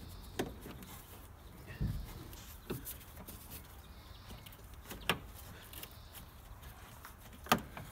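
Scattered clicks and knocks of pliers working a spring hose clamp on a radiator hose, with a duller thump about two seconds in and the sharpest click near the end.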